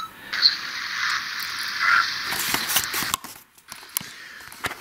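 Playback through the small, tinny speaker of a handheld Sony digital voice recorder: a hiss with faint, indistinct sounds and small clicks. About three seconds in it stops, and handling knocks and rustles follow.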